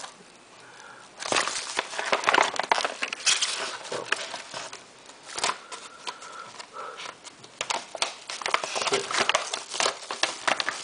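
Cardboard mailer, paper slip and bubble-wrap packaging being pulled open and handled: irregular rustling and crinkling with many small sharp crackles, starting about a second in.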